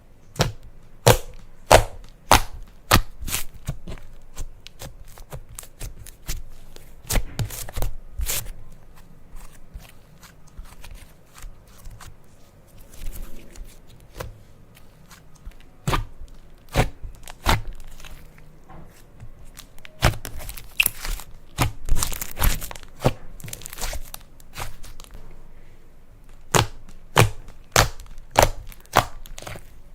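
Slime being kneaded and squished by hand, giving a string of sharp clicking pops, irregular and in places coming in quick runs.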